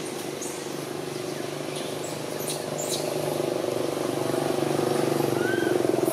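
A motor vehicle's engine running with a steady low hum, growing louder over the last few seconds.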